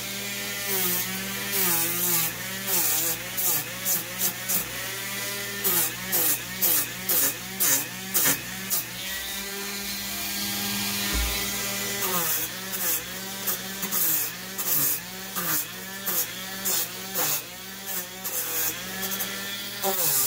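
Dremel rotary tool with a sanding drum running and sanding into foam board. Its motor whine sags in pitch each time the drum bites into the foam, about once or twice a second, with bursts of gritty scraping. The tool runs steadier and unloaded for a few seconds in the middle.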